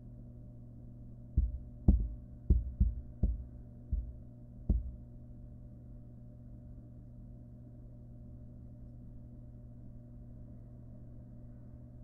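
About seven dull thumps and knocks in a wooden nest box within about three seconds, as a barn owl fledgling shifts and turns on the wood-chip floor while gulping down a rat. A steady low hum runs underneath.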